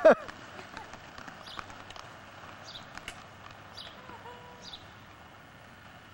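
A child's high shout cuts off right at the start, then quiet street ambience: inline skate wheels rolling on asphalt with scattered light clicks, and a few short high chirps.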